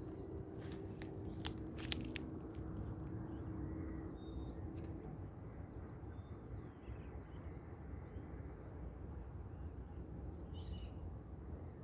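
Scattered short bird chirps and calls from several birds at dawn, with a brief flurry of chirps near the end. Low background rumble throughout, and a few sharp clicks in the first two seconds.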